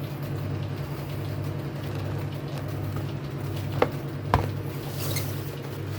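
Steady low hum with two light clicks a little past halfway.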